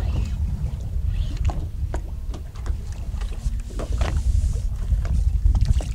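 Wind rumbling on the microphone over water lapping against a boat's hull, with scattered light knocks and clicks.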